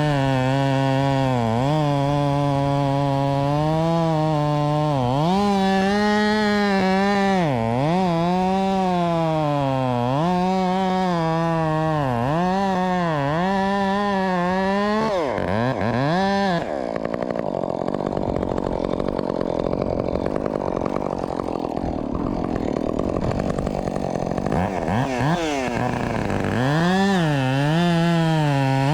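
Husqvarna two-stroke chainsaw revving and cutting, its engine note dipping and rising again and again as the chain bogs into the wood and frees. For several seconds past the middle the clear high note drops to a lower, rougher run before the saw revs up again near the end.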